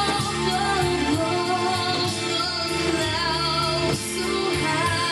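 Pop-style band music with a woman singing held notes with vibrato.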